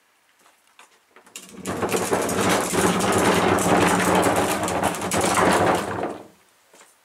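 Homelite electric chainsaw's motor and chain running at full speed for about five seconds, starting about a second in and winding down near the end.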